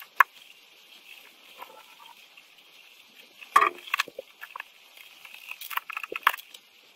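Small clicks, taps and knocks of hands working on the car stereo's parts, with a sharp click just after the start and clusters about three and a half and six seconds in, over a faint steady hiss.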